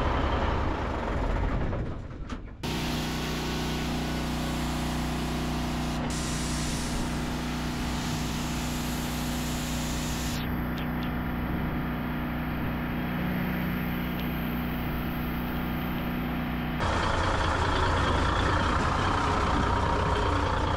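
An engine running steadily with a hiss over it, heard in several spliced clips that cut abruptly about two and a half, ten and a half and seventeen seconds in.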